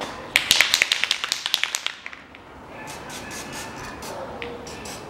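Aerosol can spraying red assembly lubricant onto camshaft lobes: a rapid sputtering run of short spits for about a second and a half, then quieter, scattered spurts.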